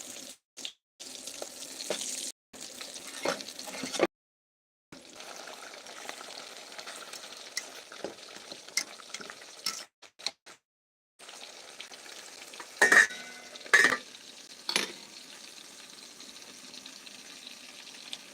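Food frying in a pan, a steady sizzle, with three sharp clinks of a utensil against the pan about two-thirds of the way through. The sound cuts out completely for moments several times.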